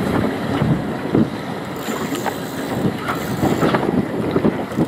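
Wind buffeting the microphone over water slapping and sloshing against a small boat's hull at sea, with a few faint knocks.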